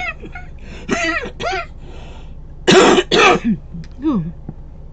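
A woman's laughter breaking into coughing: a couple of short laughs, then two loud, harsh coughs about three seconds in and a short falling vocal sound after; laughing is what sets off her cough.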